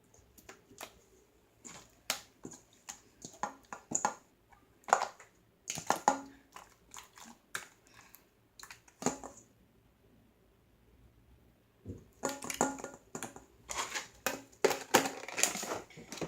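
Sticky slime being squished and pulled in the hands, making irregular wet clicks and pops. There is a quiet pause about ten seconds in, then a faster, louder run of crackling squelches.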